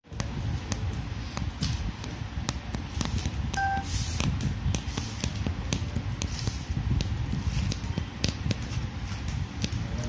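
Hand embroidery needle punching in and out of taut fabric: irregular light ticks and taps over a low steady rumble, with one short beep about three and a half seconds in.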